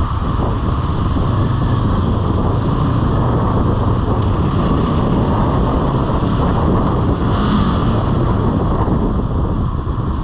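Steady wind noise buffeting the microphone over the running engine and road noise of a motorcycle being ridden.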